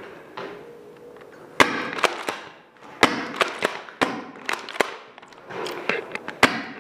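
Airsoft guns firing and BBs striking, a dozen or so sharp cracks at irregular intervals. The loudest come about a second and a half in and near the end.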